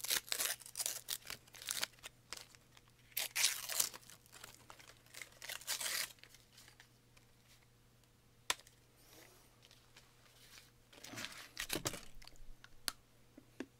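Chocolate bar wrapper being torn open and crinkled by hand, in bursts over the first six seconds. Then quieter, with a sharp click past the middle and a few more rustles near the end.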